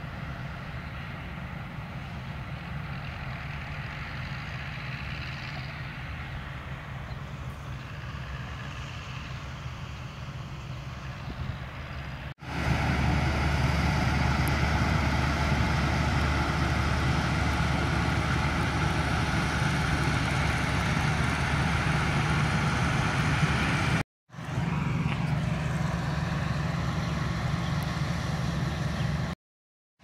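Fortschritt E-514 combine harvester's diesel engine running under load while harvesting, a steady drone. It is fainter at first, then much louder from about twelve seconds in with the machine close by. The sound cuts out briefly twice near the end.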